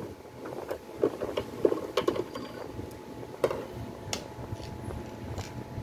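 Scattered clicks and knocks of the plastic base of an electric juicer being handled on a workbench, over a faint steady hum.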